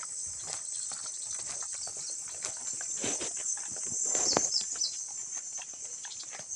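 Steady high-pitched chorus of crickets and other insects, with irregular soft crunches and rustles that are a little louder about three to four seconds in.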